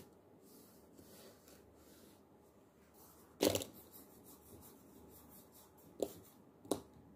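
Felt-tip pens and small paint jars being handled and set down on a paper sheet: faint rustling, a sharp clatter about three and a half seconds in, and two short clicks near the end.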